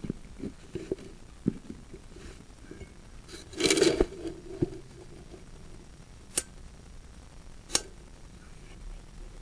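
Sewer inspection camera gear being handled: a run of light knocks and clicks, a louder scraping rustle about four seconds in, then two sharp clicks.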